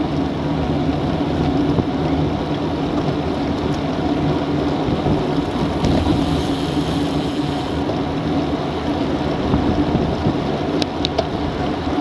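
Wind rushing and buffeting over a bicycle-mounted Garmin VIRB action camera's microphone at about 30 km/h, mixed with road noise from a riding group of road bikes. A brighter hiss rises for a couple of seconds midway, and a few sharp clicks come near the end.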